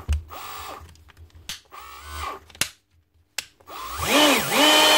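Bosch GBH 36VF-LI cordless SDS hammer drill's DC motor spinning freely on its trigger, with a few sharp clicks in the first half, then twice near the end whining up to full speed and back down. The motor runs but does not engage the drive, because the gears are stripped.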